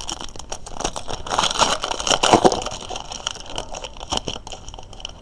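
A football trading-card pack's wrapper being torn open and crinkled: a dense run of crackles, loudest about halfway through.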